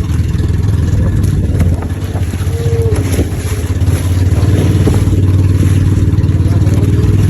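A motor vehicle's engine running steadily with a low, even rumble.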